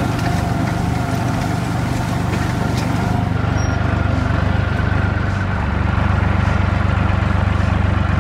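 Tractor engine running steadily, its low note getting a little stronger about six seconds in.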